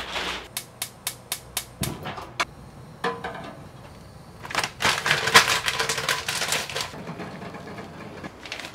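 Kitchen food-preparation sounds: a quick run of about eight sharp clicks or taps, then about two seconds of dense crackling and rustling.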